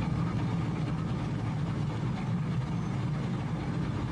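Rotomilling (scarifying) machine running steadily as it mills the top surface of a concrete bridge deck: a steady low engine and cutting-drum drone with a faint constant hum.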